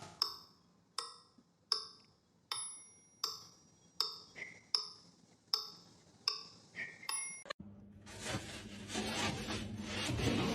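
A regular series of sharp, ringing taps, about one every three-quarters of a second, then a sudden cut to a busier, noisier sound about seven and a half seconds in.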